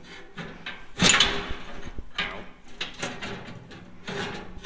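Steel spacer bar scraping and knocking against the steel storage bin's frame as it is set in place. The loudest scrape comes about a second in, followed by several lighter knocks.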